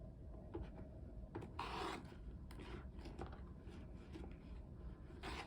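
Glue-coated rod rubbing along the inside of a hardcover book's spine hinge: a few short rubbing strokes, the longest about a second and a half in and another near the end.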